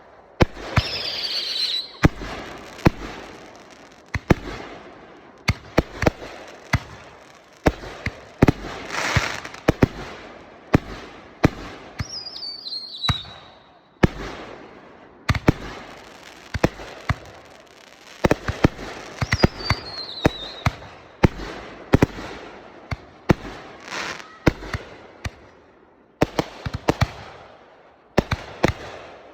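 Consumer fireworks going off: a long, irregular string of sharp bangs with crackling and hissing between them. A few whistles fall in pitch along the way.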